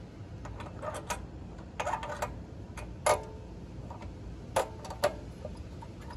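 A blue metal air-filter adapter clicking and tapping against the carburettor of a Predator 212 engine as it is worked into place by hand: scattered light clicks in small clusters, with a sharper knock about halfway through and two more a little later.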